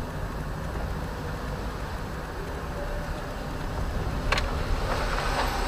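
Inside a moving car on a wet road, engine and tyre noise make a steady low rumble and hiss, with a single sharp click about four seconds in.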